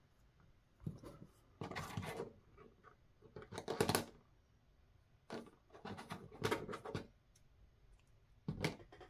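Paper and thread handling noise: about six short scratchy rustles as a needle and thread are worked through a paper page by hand.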